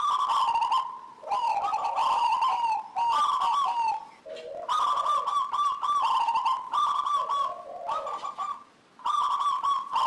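Zebra dove (perkutut) singing its song of rapid, wavering coo notes, delivered in a series of short phrases with brief pauses between them.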